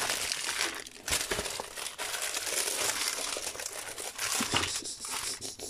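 Plastic packaging film crinkling and rustling as a rolled diamond painting canvas and its bags are handled and unrolled, with a brief lull about a second in.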